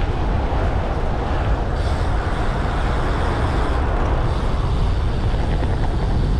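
Wind rushing over the microphone of a camera on a moving road bike: a steady low rumble with hiss above.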